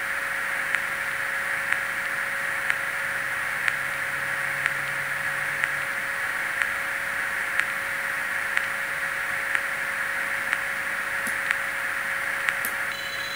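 Standing sound from a DCC sound decoder in an N-scale KATO 115 series electric train model, played through the car's small built-in speaker: a steady hiss with a faint hum and a sharp tick about once a second. Near the end the ticking stops and the hiss drops.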